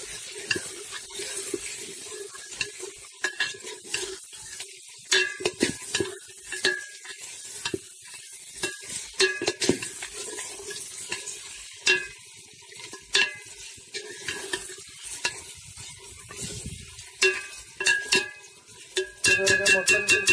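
Long metal spoon scraping and knocking against a brass pot while mutton is stirred and fried in masala, over a steady sizzle. The strokes come irregularly, then in a quick run near the end.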